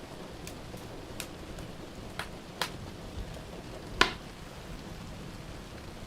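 Wood fire crackling in a fireplace, with a few sharp pops, the loudest about four seconds in, over a steady hiss of rain.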